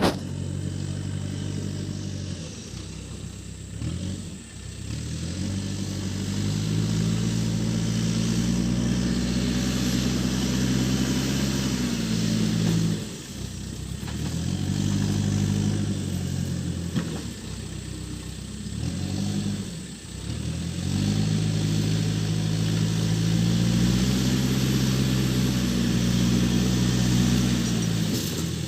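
Case backhoe loader's diesel engine working under load, revving up and dropping back again and again, with short dips in engine speed about four, thirteen and twenty seconds in.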